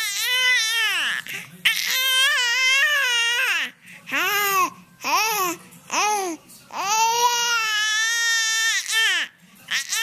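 Young infant crying in protest, upset and mad: a run of about seven high wailing cries, each rising and then falling in pitch, with short pauses between them.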